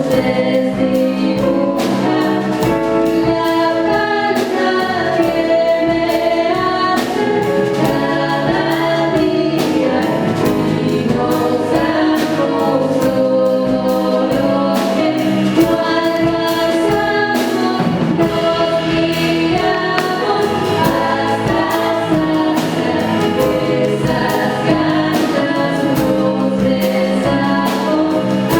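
A vocal group singing in several harmonised parts over a light steady beat.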